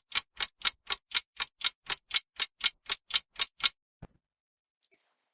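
Clock ticking, evenly at about four ticks a second, stopping a little over halfway through with one last click just after.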